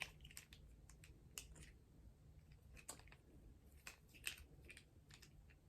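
Near silence with a few faint, scattered clicks: the plastic joints and parts of a Transformers action figure being handled and adjusted.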